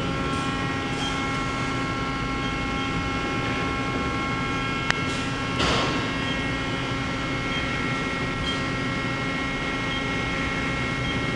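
Mori Seiki NL3000Y CNC turning center running as its turret traverses through X, Z and Y axis moves, a steady machine hum with several steady whining tones; the axes move smoothly. A sharp click about five seconds in and a brief rattling swish just after it.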